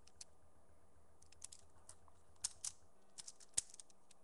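Light, scattered plastic clicks and taps of Lego bricks as a Lego balisong is handled, with a sharper knock near the end.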